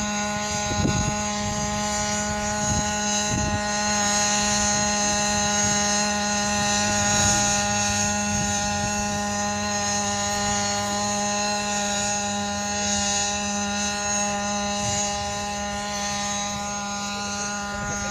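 Eirobotix D130 X4 quadcopter's electric motors and propellers whining steadily in flight, several tones held at a constant pitch, with occasional low wind buffeting on the microphone.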